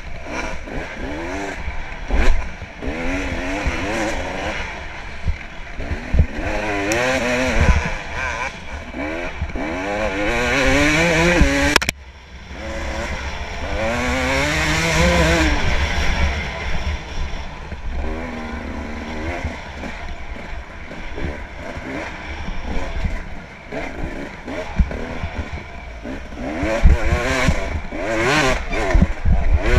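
Dirt bike engine revving up and down over and over as the rider works the throttle and gears along a rough trail, with knocks from the bike over bumps. The revs drop off sharply about twelve seconds in, then build again.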